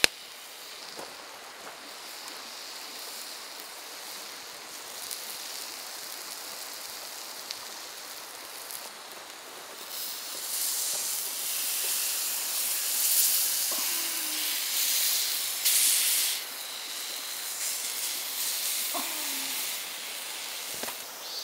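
Crocodile arm searing on a hot black iron griddle plate over a campfire, its juices and fat sizzling with a steady hiss. The hiss swells louder about halfway through.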